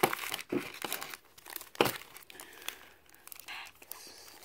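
Foil wrappers of Pokémon TCG booster packs crinkling and rustling as they are handled, with one sharp click or tap a little under two seconds in.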